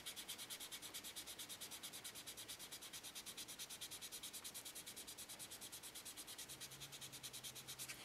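Small piece of fine sandpaper rubbed by hand in fast, even back-and-forth strokes over the painted resin surface of a statue, sanding a paint smudge smooth before repainting. Faint, at about ten strokes a second.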